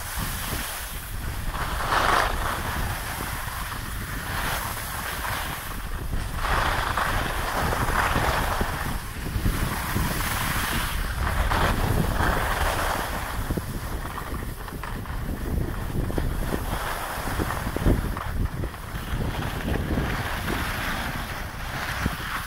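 Wind rushing over the microphone of a skier moving downhill, with skis hissing and scraping on packed snow in swells every few seconds.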